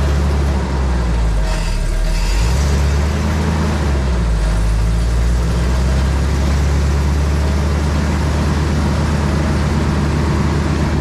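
Ford engine of a Bandit drum wood chipper running as the chipper drum is brought up to speed, its note wavering in the first two or three seconds, then steady.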